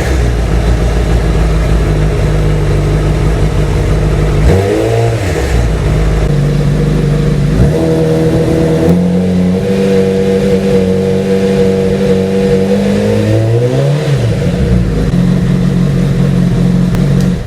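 Honda CBR1000RR inline-four engine running and being revved, its speed rising and falling several times and held steady at higher revs for several seconds in the middle, then stopping abruptly. This is the first run after a new cam chain tensioner was fitted, to check for the buzzing from the right side of the engine at 3000 rpm, which the owner had put down to the cam chain; he reports the noise gone.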